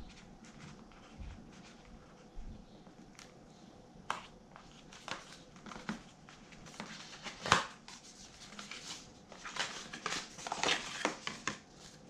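Paper rustling and crinkling, with small clicks and taps, as folded instruction leaflets are handled and opened out. It is loudest about seven and a half seconds in and again between nine and eleven seconds.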